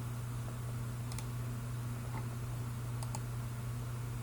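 A few faint clicks from working a computer's mouse or keyboard, two of them close together about three seconds in, over a steady low hum.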